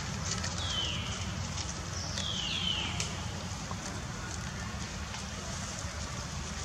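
Young macaque giving three short, high, falling squeals: one about a second in and two close together around two to three seconds in, over a steady low rumble of wind on the microphone.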